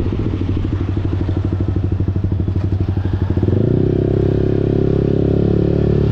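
Yamaha R15 V4's 155 cc single-cylinder engine through a full-system Akrapovic exhaust: an uneven, pulsing burble off the throttle for about three and a half seconds, then the throttle opens and it pulls with a steady, fuller note.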